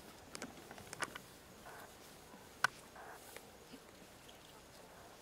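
Faint rustling in dry grass with a few sharp snaps and clicks, the loudest about two and a half seconds in.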